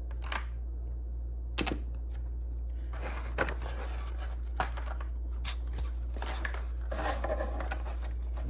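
Plastic packaging and shipping holders rustling and clicking as an HO-scale model locomotive is unpacked and handled, with a few sharper clicks, over a steady low hum.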